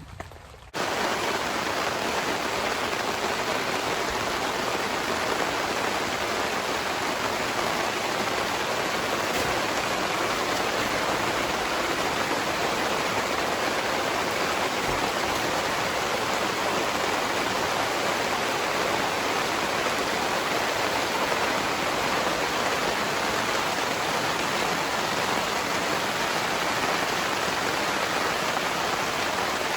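Heavy rain pouring down steadily, starting abruptly about a second in.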